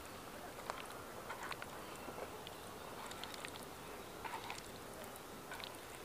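Soft wet squishing and scattered small clicks of vegetable pieces being turned by hand in a thick spiced marinade, over a faint steady hiss.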